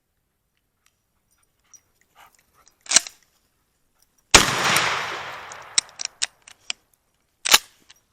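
A 12-gauge GForce P3 firearm fired once, a loud blast whose echo dies away over about a second and a half, followed by a few light clicks. Two shorter sharp cracks come about a second and a half before the blast and about three seconds after it.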